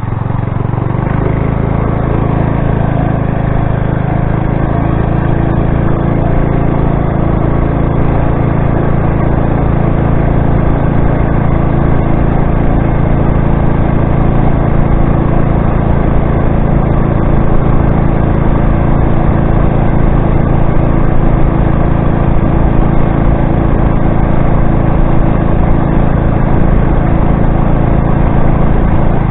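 Motorized bicycle's small gas engine running while the bike is ridden; it picks up revs over the first couple of seconds, then runs at a steady, even pitch.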